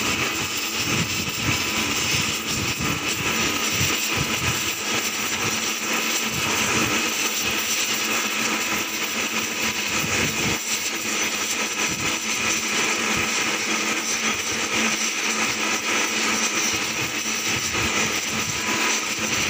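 Gas welding torch flame running with a steady roaring hiss while brazing a repair on a propeller blade with a filler rod.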